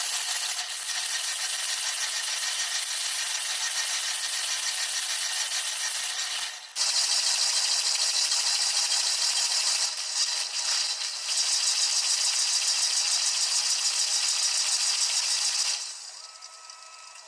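Water from a running dishwasher's spray arms pelting the dishes and racks inside the machine, a dense steady hiss with rattle. It breaks off briefly about six and a half seconds in, comes back louder, and falls much quieter near the end.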